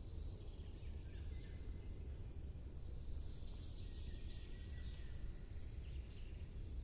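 Outdoor ambience: a steady low rumble under faint, scattered songbird chirps and short whistles, with one quick downward-sweeping call about two-thirds of the way through.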